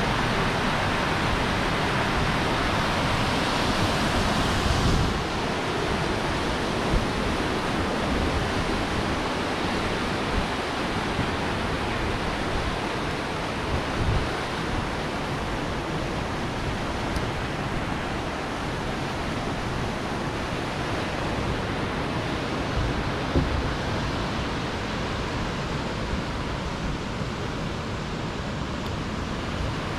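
Steady rush of a fast mountain river running white over rocks, with low rumbles of wind on the microphone now and then.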